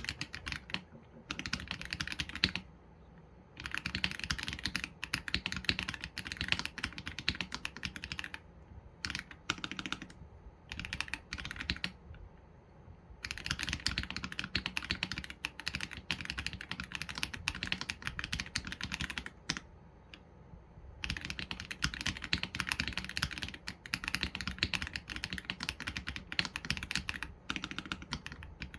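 Typing on an AULA F87 Pro mechanical keyboard with Leobog Graywood V3 linear switches and PBT keycaps: fast runs of keystrokes broken by short pauses of a second or two.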